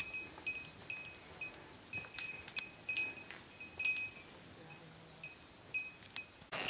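A hiker's bear bell jingling as its wearer walks, one clear high ring with each step, about two or three times a second.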